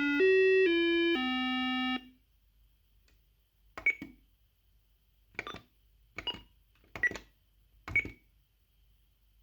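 Electronic call melody of a Cyfral Intel apartment intercom, a run of single buzzy notes that cuts off about two seconds in. Five short, sharp clicks follow over the next few seconds.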